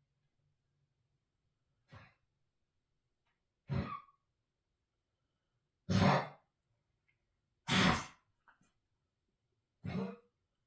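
A pet coughing in a series of five short, breathy hacks about two seconds apart, the first faint and the third and fourth loudest.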